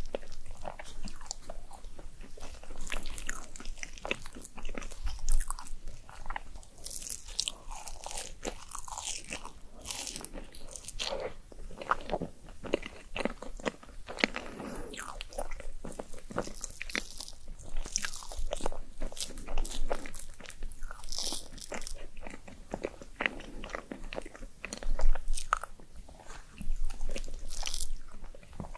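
Close-miked eating: a person biting into and chewing crunchy food, with many irregular sharp crunches and wet chewing sounds.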